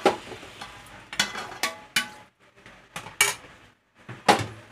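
A metal utensil clanking and scraping against a metal cooking pot as chicken pieces are stirred while being sautéed, with several sharp knocks at uneven intervals.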